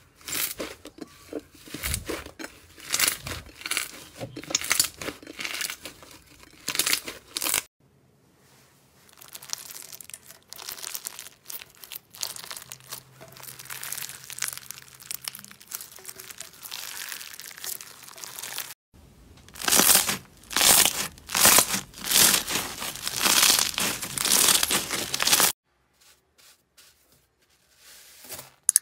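Hands squeezing and kneading slime in a series of short clips, each a dense run of quick, sharp crackles and squelches. The middle stretch, with gold star glitter in the slime, is quieter.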